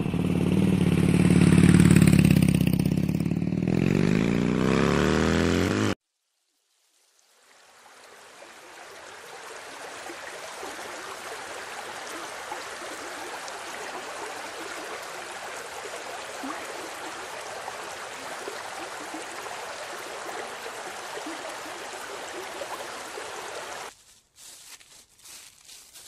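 A motor runs loudly for about six seconds, its pitch rising and falling, and stops abruptly. After a second of silence, the steady rush of a small waterfall spilling over rocks fades in and runs on. Near the end come a few light rustles and clicks.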